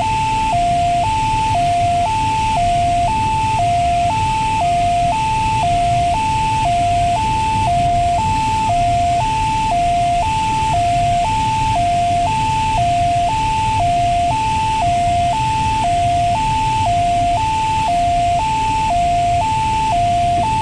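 Two-tone electronic alarm in a glider cockpit, alternating between a higher and a lower beep about once a second, over steady airflow noise while the spoilers are out.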